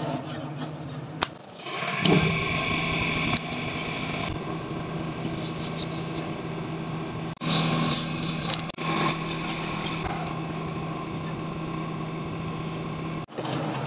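A wall-mounted rotary switch clicks. About a second later a bench electric motor starts, its shaft fitted with a drill bit, and runs with a steady hum while it drills holes through wooden knife-handle scales. The sound drops out briefly twice in the middle and stops near the end.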